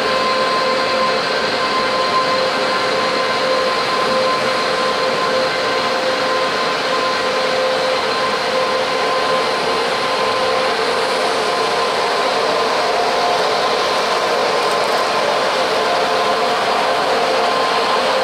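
Electric commuter train moving slowly along the tracks, a steady running hum with several constant electrical whine tones; one more whine tone joins about two-thirds of the way through.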